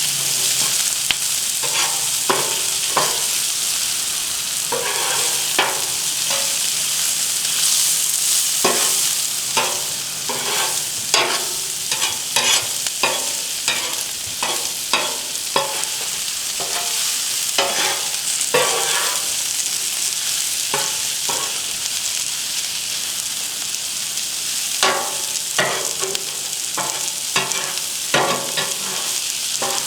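Sliced mushrooms, red onions and green bell peppers sizzling in vegetable oil on a hot Blackstone flat-top griddle, with a steady hiss, while being stirred and tossed: many short scrapes and clicks of a spatula against the griddle top.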